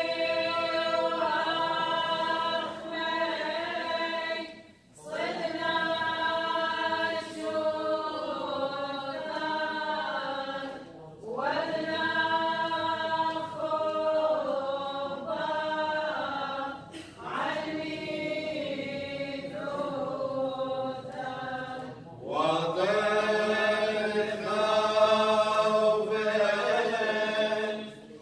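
Church choir chanting an Assyrian Church of the East liturgical hymn without instruments, in long held phrases with short breaks for breath about every five to six seconds.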